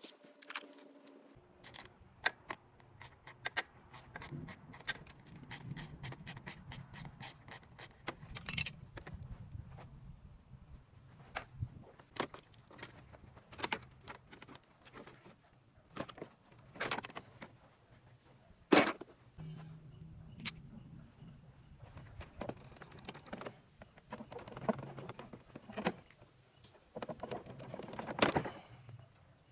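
Scattered clicks, taps and knocks of hand tools and loose car parts being handled while bolts and trim are taken off a car, the loudest knock about two-thirds of the way through. A faint steady high whine runs behind them from about a second in.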